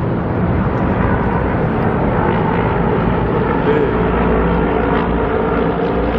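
Steady vehicle noise: a low engine hum with road noise.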